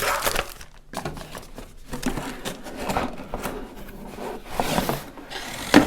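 Plastic parts of a toy slime-making kit being handled and unpacked: irregular rustling, rubbing and scraping, with one sharp knock just before the end.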